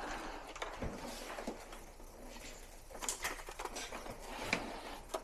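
Scattered light clicks, knocks and rustling of plastic air-conditioner parts and wiring being handled during disassembly, with a few sharper clicks about a second in, near three seconds and near four and a half seconds.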